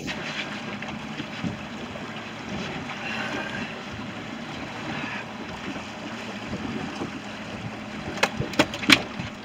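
Steady wind and water noise on a small boat's open deck on choppy water. A little after eight seconds in come a few sharp clicks and knocks, the loudest sounds, as gear is rummaged in a side tackle compartment.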